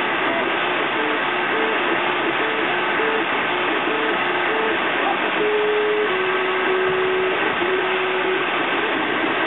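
3D printer at work: its stepper motors whine in short steady tones that jump from pitch to pitch as the print head moves, with a few longer-held tones in the middle, over a steady hiss from the printer's cooling fan.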